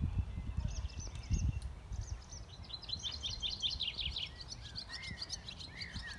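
Songbirds chirping and singing, with a fast trill of high notes in the middle. Low dull thumps sound underneath.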